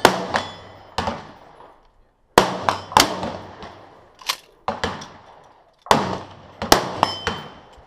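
Shotguns firing at a trap range: a dozen or so shots at irregular intervals, some loud and close, others fainter, each trailing off in echo.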